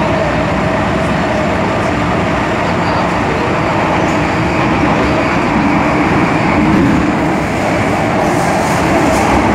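MTR M-Train electric multiple unit running at speed, heard inside the passenger car: a steady loud rumble of wheels on the track, with a steady whine from the traction equipment.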